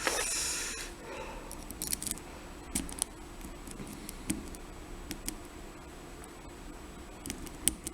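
A lock pick scraping and clicking against the pins inside a Kryptonite six-pin lock as it is picked. A short scrape in the first second is followed by scattered faint metallic clicks.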